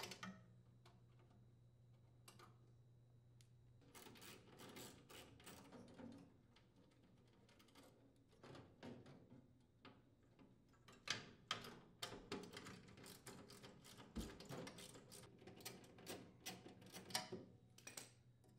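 Faint, irregular metal clicks and ticks of a screwdriver unthreading the mounting screws on a furnace draft inducer motor assembly, coming in clusters and busiest in the second half.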